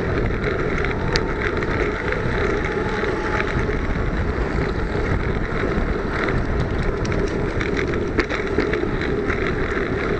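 Wind buffeting the microphone of a camera mounted on a Brompton folding bike ridden at speed, with a steady rush of tyre and road noise and scattered small clicks and rattles.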